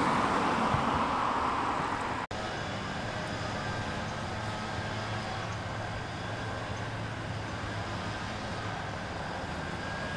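A car passing on the street, its tyre and engine noise fading over the first two seconds. After a brief dropout comes steady traffic noise with a faint low hum.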